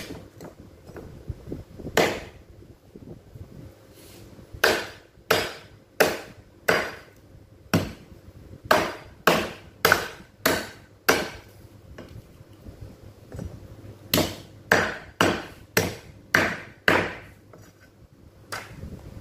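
Meat cleaver chopping pork bones on a thick round wooden chopping block: a run of sharp chops, roughly one or two a second, with a pause of a few seconds about two-thirds of the way through.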